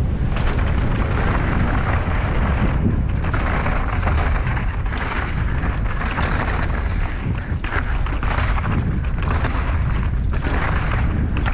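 Wind buffeting a clip-on microphone and mountain bike tyres rolling fast over dry dirt and loose stones on a downhill descent, with scattered knocks from the bike over rough ground.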